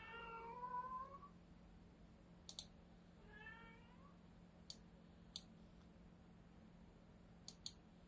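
A house cat meowing twice: a long call that rises in pitch at the start, and a shorter one about three seconds in. A few short, sharp clicks fall between and after the meows.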